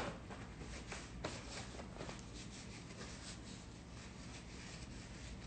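Soft rustling of a paper towel as hands are dried, with a faint tap about a second in.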